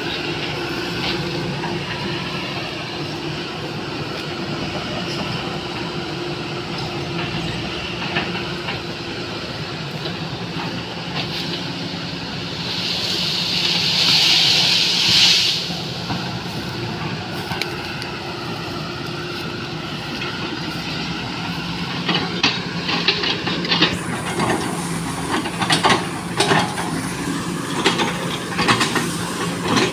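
Sany SY215C hydraulic excavator's diesel engine running steadily under load. About halfway a loud rustling hiss swells for a couple of seconds as an oil palm is pushed over. Near the end come repeated sharp cracks and knocks as the bucket breaks into the palm's trunk and root ball.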